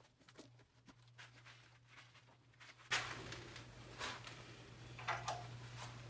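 Light clicks and knocks of a Jacobs drill chuck and spade bit being handled and set in a wood lathe's tailstock, with louder handling noise starting suddenly about three seconds in.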